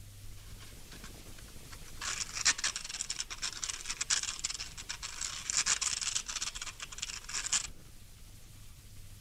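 Dense scratchy crackling, from about two seconds in until it cuts off abruptly near the end, over a faint low hum.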